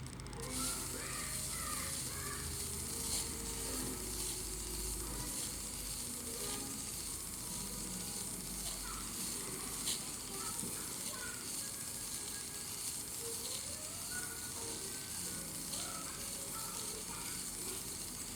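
Fine P1500 sandpaper rubbing on a CPU die during sanding, a steady hiss with a few small clicks.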